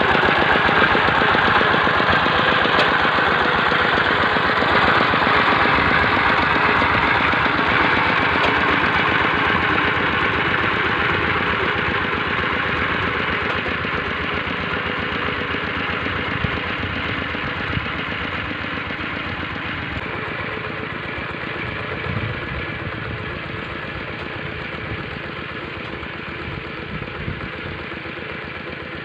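Two-wheel walking tractor on metal cage wheels, its engine running with a rapid, even chugging as it drives away. It grows steadily quieter as it recedes.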